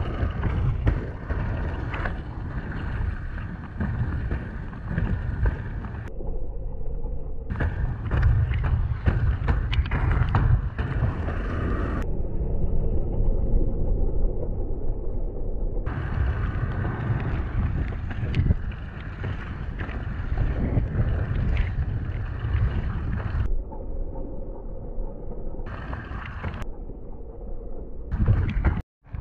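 Rumble of off-road inline skates on pneumatic tyres rolling over a muddy dirt trail, mixed with wind buffeting the microphone. The sound drops out for an instant near the end.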